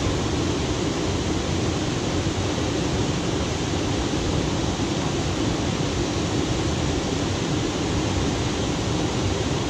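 Steady rushing of flowing water, an even roar with no breaks.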